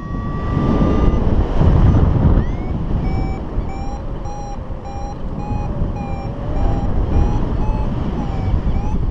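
Paragliding variometer beeping in short pulses about twice a second, the climb tone that signals the glider is rising in lift. It plays over loud wind rushing across the microphone. A steady tone holds for about the first second, and the beeping starts about two and a half seconds in.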